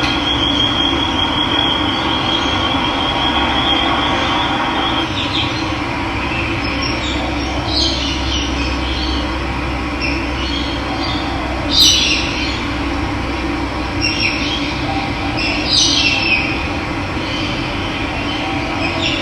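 Steady rush of running water, with birds calling over it: a high pulsing trill for the first five seconds, then a handful of short chirps and falling calls, the loudest a sharp downward call about twelve seconds in.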